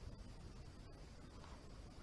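Near silence: quiet room tone with a faint steady hiss.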